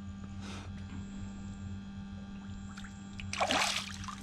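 A bream released over the side of a boat hits the water with a short splash about three and a half seconds in, over a steady low electrical hum.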